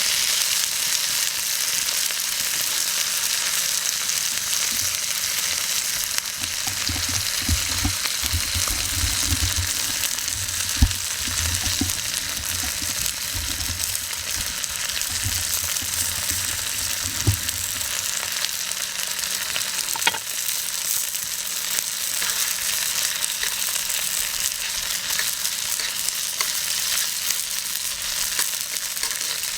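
Seasoned meat frying in an oiled iron frying pan over a wood fire, a steady hot sizzle. A few knocks and stirring sounds in the pan come through in the first half.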